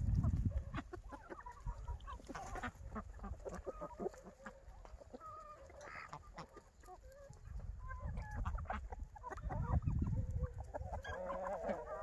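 Free-range chickens clucking, short scattered calls from a flock, with a low rumble on the microphone growing loudest about two-thirds of the way through.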